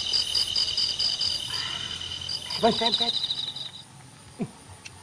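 Insects chirping in a fast pulsing trill of several high, steady notes, which stops about four seconds in. A brief, louder, lower call breaks in a little past the middle.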